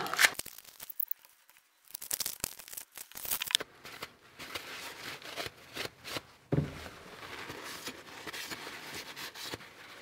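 Paper towel crinkling in the hands, then rubbing steadily along a stainless steel knife blade to wipe off leftover tape adhesive, with a soft knock about six and a half seconds in.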